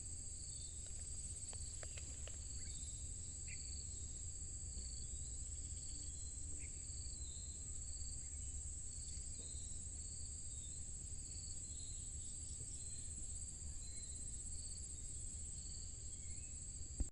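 Insects trilling: one keeps up a continuous high trill while another chirps in an even pulsing rhythm, over a low steady rumble.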